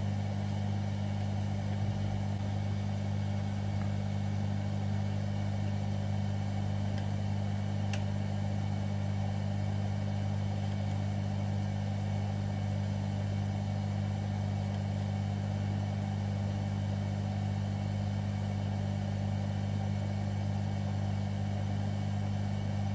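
Steady low electrical hum from running bench equipment, with a soft hiss above it that does not change.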